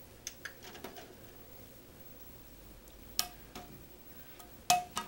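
A few light clicks and knocks, two louder ones about three seconds and nearly five seconds in, each followed by a brief ring.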